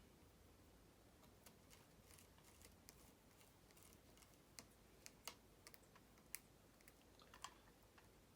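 Near silence with faint, scattered small clicks and taps of electrical wires and switch parts being handled while the black wires are connected, a few sharper clicks in the second half.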